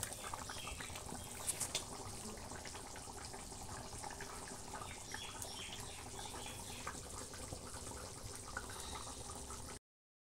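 Mutton curry bubbling at a boil in a pot, a steady hiss with small pops and ticks, cooked through and ready to come off the heat. The sound cuts off near the end.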